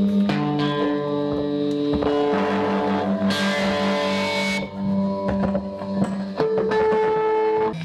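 Electric guitars through effects holding long, droning notes, the low note pulsing steadily. About three seconds in, a burst of hiss-like noise rises over them for about a second, and the notes change near the end.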